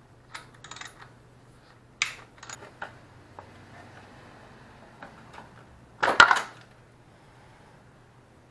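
Hand tools clicking and clinking on metal while 8 mm bolts are undone, a series of short light knocks with a louder metal clatter about six seconds in.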